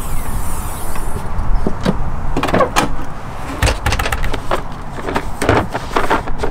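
Clunks and knocks of a Toyota Land Cruiser 100-series rear tailgate being opened and let down, then a boxed socket set being handled on it. The knocks come irregularly, several a second at times, over a steady low rumble.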